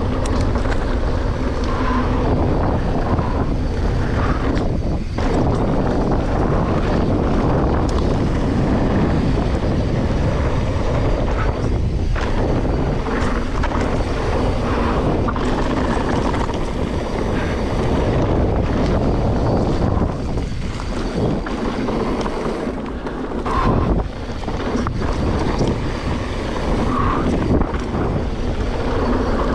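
Wind buffeting the microphone on a moving mountain bike, over the steady noise of its tyres rolling on a dry dirt trail, with scattered short knocks from the bike over rough ground.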